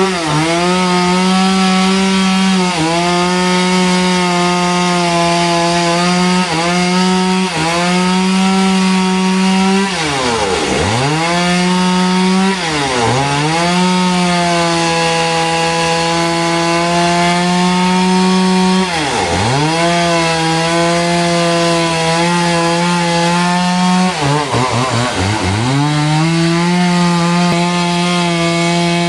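Powered sawmill saw cutting through a trembesi log with a steady motor whine over the hiss of the cut. Several times the motor's pitch drops sharply as the cut loads it, then climbs straight back up to speed.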